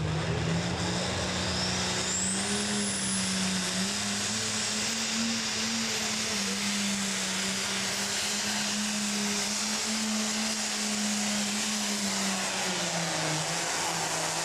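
Farm pulling tractor's diesel engine under full load as it drags a weight-transfer sled, held at high revs with its pitch wavering and sagging briefly near the end. About two seconds in, a thin high whistle climbs for a couple of seconds.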